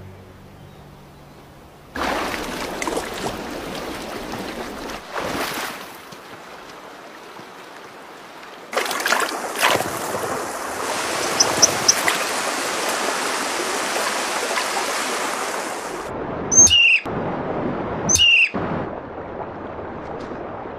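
Rushing stream water, its rush changing abruptly a few times, with a few short high bird calls: three quick chirps about halfway through and two calls sweeping sharply down in pitch near the end.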